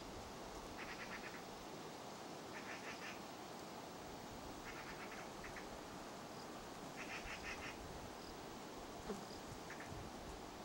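Faint chirping in short, rapidly pulsed bursts, about five times a couple of seconds apart, over a low steady hiss.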